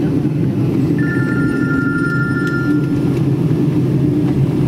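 Steady low rumble inside a Boeing 777's passenger cabin as the airliner taxis on the ground. About a second in, an electronic cabin chime sounds: two high tones that ring for about two seconds.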